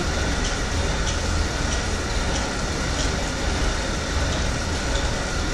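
Exercise bike being pedalled at a steady easy pace of about 45 RPM. It makes a steady whirring noise with a low rumble and faint ticks a little under twice a second.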